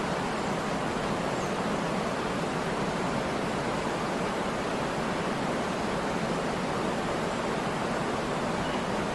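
Waterfall: water falling and splashing into a pool with a steady, unbroken rush.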